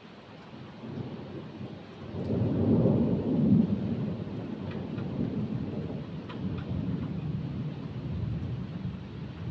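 A long roll of thunder over steady rain: the rumble builds about a second in, is loudest around three seconds in, then rolls on more quietly.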